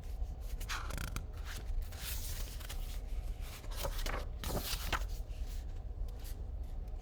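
Paper rustling and sliding in a series of short, scratchy swishes as the pages of a picture book are handled and turned.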